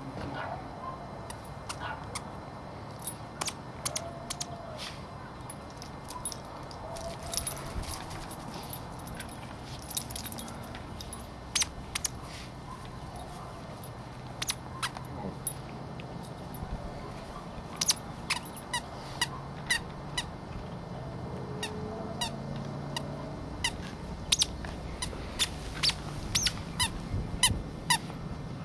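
A dog chewing a plush squeaky toy, squeezing out short squeaks again and again, with many sharp clicks that come thicker in the second half.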